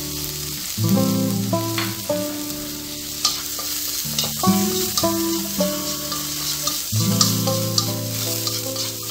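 Diced shiitake mushrooms and Chinese onion bulbs sizzling in hot oil in a wok as they are stir-fried with chopsticks, with light clicks of the chopsticks against the pan.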